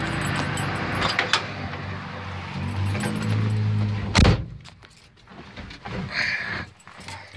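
Steady outdoor traffic noise with a low hum, then about four seconds in the driver's door of a 1977 GMC pickup slams shut and the noise drops to the quiet of the closed cab. A light jingle of keys follows near the end.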